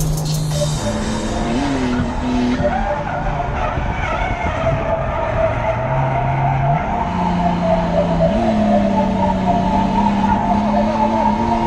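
BMW E30 drift car heard from inside the cabin, its engine held at high revs through the slide, the pitch stepping up and down several times with throttle and gear changes, while the tyres squeal continuously.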